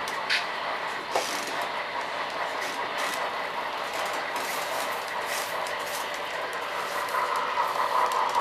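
Model train of coal hopper cars rolling along the layout track: a steady rattle with many small clicks from the wheels over the rail joints. A brief falling squeal comes right at the start, and the running grows louder near the end.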